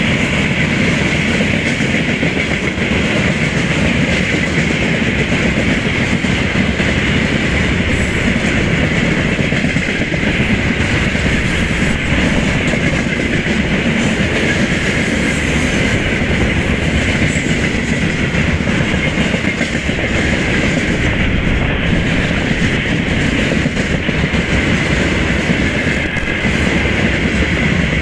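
Freight train of railway tank wagons rolling past close by: a steady loud rumble with the wheels clattering over the rail joints and a steady high ringing above it.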